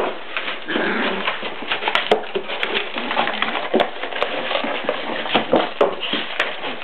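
A Pomeranian shoving a cardboard box across a tile floor: cardboard scraping and scuffling, with many small knocks and clicks throughout.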